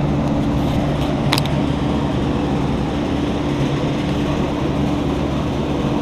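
A car engine idling, a steady low hum with a constant drone, and one faint click about one and a half seconds in.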